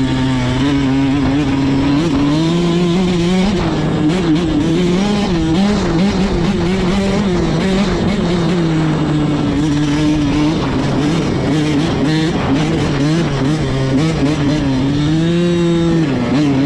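85cc two-stroke dirt bike engine running hard, its pitch rising and falling again and again as the throttle is opened and closed.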